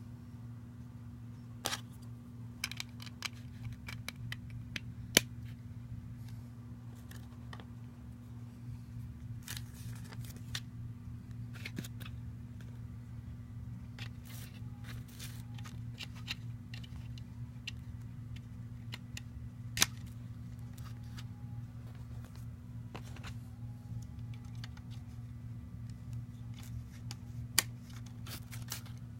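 Plastic Lego pieces being handled and pressed together: scattered small clicks and taps, with a few sharper snaps, over a steady low hum.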